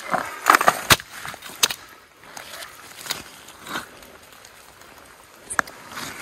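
Scattered sharp knocks, clicks and rustling as a landed Chinook salmon is handled in a landing net on riverbank gravel. The loudest knocks come in the first two seconds, with another near the end.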